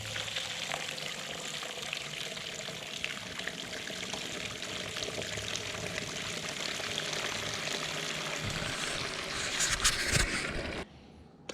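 Water running and splashing steadily while engine parts are washed, getting louder near the end before cutting off abruptly.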